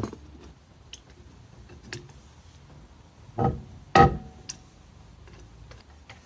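Metal clinks and knocks of a wheel wrench on the wheel bolts of a jacked-up van's rear wheel: a sharp clink at the start, a heavier knock about three and a half seconds in, then the loudest clank, ringing briefly, with faint ticks between.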